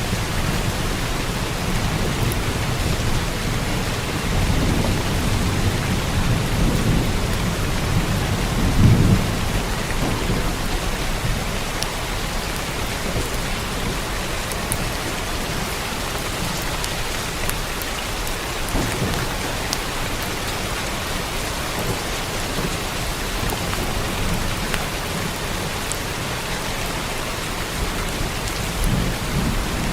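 Steady heavy rain on a roof with rolling thunder rumbling low, loudest about nine seconds in and swelling again near the end.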